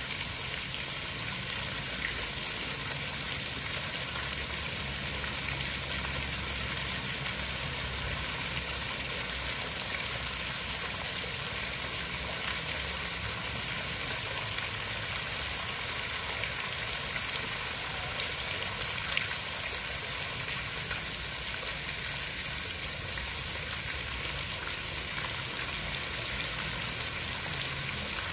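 Steady hiss of water, an even noise that does not change, with a low rumble underneath.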